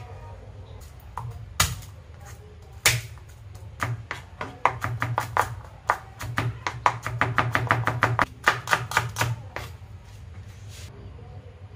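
Kitchen knife chopping garlic on a plastic cutting board: a few single knocks at first, then a quick run of chops, several a second, from about four seconds in until near the end.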